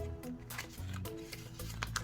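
Background music: held melodic notes over a light, regular beat.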